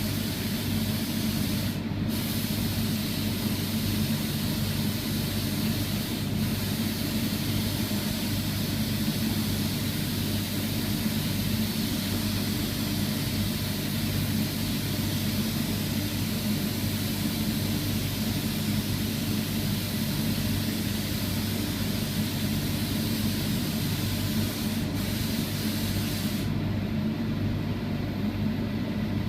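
Spray gun hissing as it sprays sanding sealer, over a steady low machine hum. The hiss breaks off briefly twice, then stops about three seconds before the end, leaving the hum.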